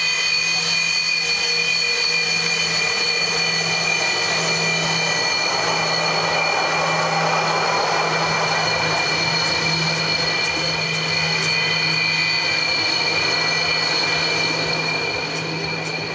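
Sukhoi Su-27's twin AL-31F turbofan engines running at taxi power: a steady high-pitched whine over a rush of jet noise, easing slightly near the end as the jet rolls away.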